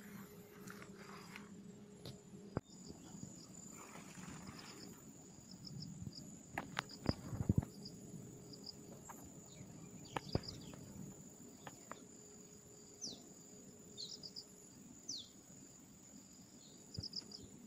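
Insects keep up a steady high-pitched drone with repeated short chirps, in a quiet swampy pond-side ambience. Scattered sharp clicks and knocks break in, loudest about halfway through, and two short falling whistles come late on.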